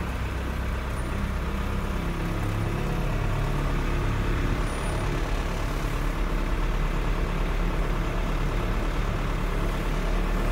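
Truck engine running steadily while the truck drives along, heard from inside the cab.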